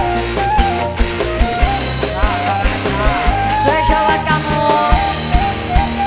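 Live dangdut band playing amplified through a PA: drum kit, electric guitars and keyboards, with a stepping, wavering melody line over a steady drum beat.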